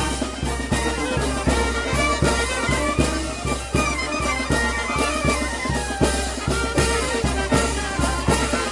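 Festive brass-band music: wind and brass instruments play a melody over a steady drum beat.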